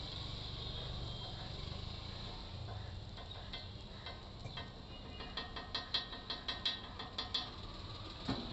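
Steel spatula clicking and scraping against a flat dosa griddle: a quick run of sharp metallic taps, about five a second, for a couple of seconds past the middle, over a steady background hiss.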